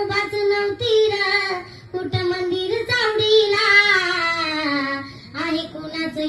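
A schoolgirl singing a Marathi Bhim geet in long held, slowly gliding notes, a single voice with no instrument heard, pausing briefly about two seconds in and again near the end.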